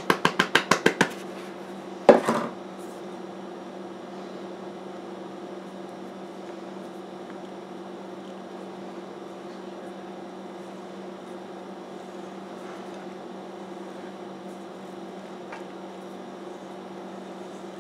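A quick run of about a dozen light taps in the first second as flour is knocked out of a plastic bowl into a glass mixing bowl, then a single louder knock with a short ring about two seconds in. After that only a steady low hum remains, with a few faint ticks.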